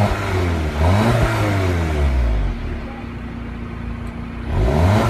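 2016 Audi TT's 2.0-litre turbocharged four-cylinder engine, heard at the dual exhaust tailpipes, being revved at standstill. The revs climb and fall back toward idle, once at the start, again about a second in, and a third rev begins near the end.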